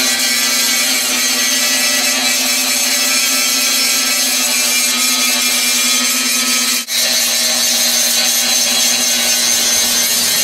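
Angle grinder running steadily against rusty steel, grinding off paint and rust, with a constant motor whine under the grinding noise. It drops out for an instant about seven seconds in, then carries on.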